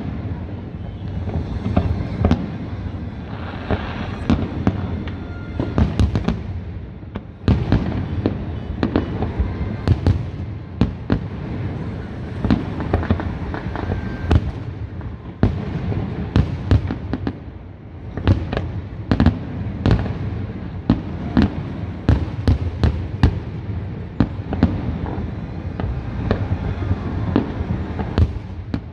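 Aerial firework shells bursting in quick succession, with many sharp bangs and cracks over a continuous rumble.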